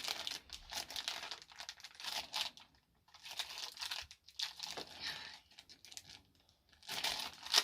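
Plastic toy packaging crinkling and tearing as it is pulled open by hand, in irregular bursts of crackle with a short lull about three seconds in.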